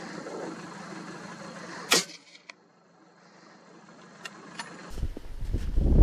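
A single hunting gunshot about two seconds in: one sharp, loud crack with a short tail. From about five seconds in, a loud low rumble of wind on the microphone.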